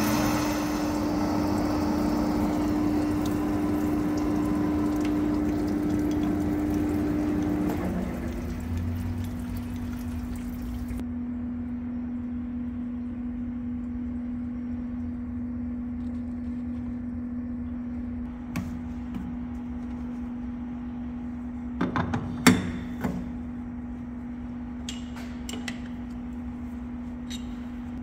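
Hafco centre lathe boring into the end of a 6-inch chrome bar, with coolant pouring over the cut. About eight seconds in the cut ends and the lathe's steady hum steps down in pitch, running on with a few sharp knocks about two-thirds of the way through.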